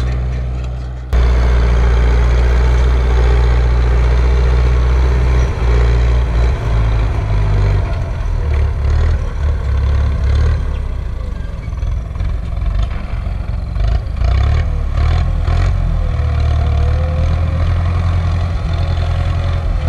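Turbocharged Ursus C-360 tractor's four-cylinder diesel engine working hard under load while pulling a 3.4 m cultivator through ploughed soil, its low engine note rising and falling. About a second in the sound changes abruptly, as an edit cuts in from another tractor engine.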